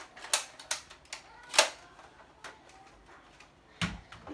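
Sharp plastic clicks and snaps from a toy crossbow being cocked and handled, the loudest snap about a second and a half in, with a duller thump near the end.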